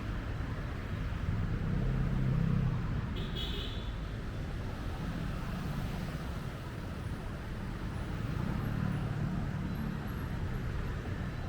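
City street traffic: a steady low rumble of cars going by, swelling twice as vehicles pass close. A brief high-pitched tone sounds about three seconds in.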